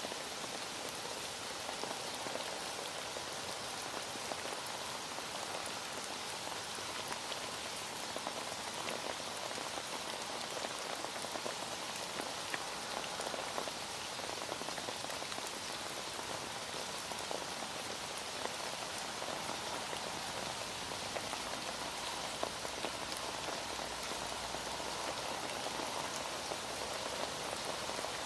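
Heavy rain falling steadily, a dense even patter of drops on surfaces with fine individual drop ticks.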